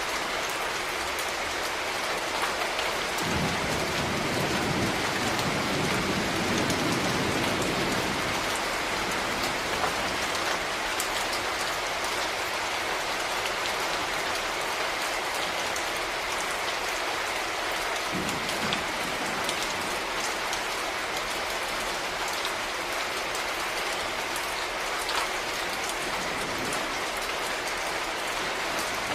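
Steady rainfall, with many separate drops ticking close by over an even hiss. A low rumble swells about three seconds in, fades out over several seconds, and comes back briefly later.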